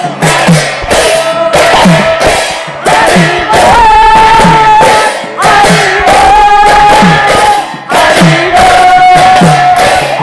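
Devotional kirtan music: a group of voices singing long held notes together over deep drum strokes, about one a second, each with a falling pitch, and bright percussion strikes.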